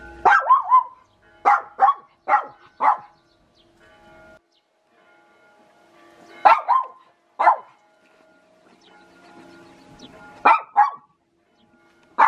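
A dog barking in short, sharp barks, in several runs of two to four.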